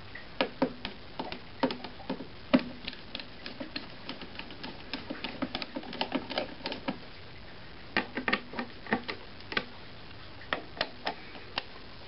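Phillips screwdriver turning small screws down into the metal brace over a coffee maker's heating element: a run of irregular light clicks and ticks, with short pauses between turns.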